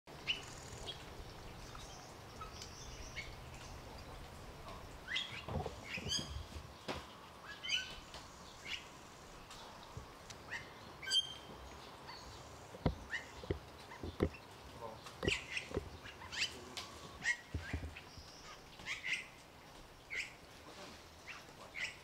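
Bali mynahs calling in a tree: scattered short chirps and whistled notes, some rising, from several birds, with a few sharp clicks mixed in.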